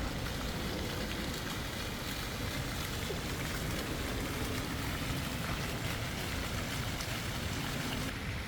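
Steady rushing noise of city street traffic, with no single vehicle standing out; the hiss thins slightly near the end.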